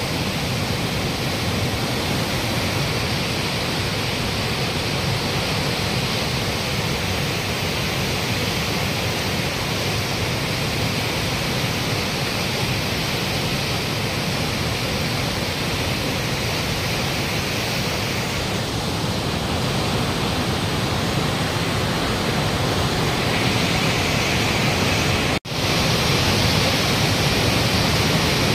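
Floodwater of a swollen river rushing and churning fast in a steady, loud rush, with a momentary drop-out once near the end.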